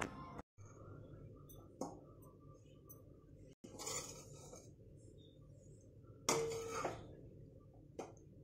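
A steel ladle clinking and scraping against a steel kadhai as dry grated coconut is stirred. There are a few separate clinks, the loudest about six seconds in.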